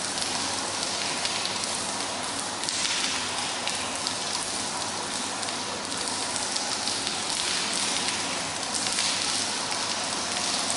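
Steady rain falling onto a wet tiled floor: an even hiss with fine scattered drop ticks, swelling a little about three seconds in and again near the end.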